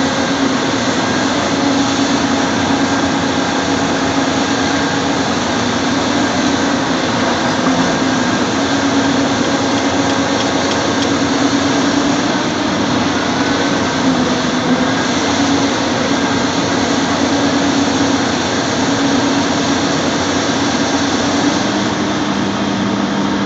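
Caterpillar 330 tracked excavator's diesel engine running steadily under load while it works its arm, a drone with a hum that wavers slightly in pitch; a second, lower tone joins near the end.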